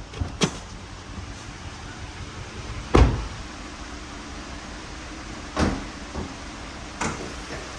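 A few sharp knocks and one loud thump about three seconds in, over a low steady rumble.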